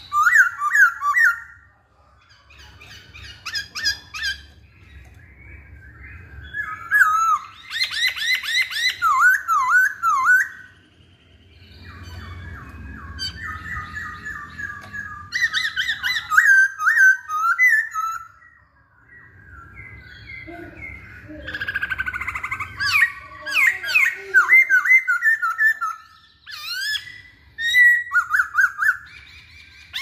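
Black-throated laughingthrush (poksay Hongkong) singing in bursts of rich whistled phrases that glide up and down, mixed with harsh chattering notes, with several short pauses between bursts.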